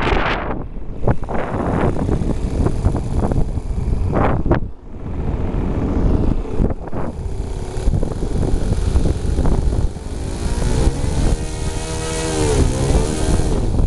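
Engine of a Falcon 56 RC model airplane droning in flight, with wind buffeting the microphone. About ten seconds in the engine note comes through clearly and its pitch falls and rises again as the plane passes.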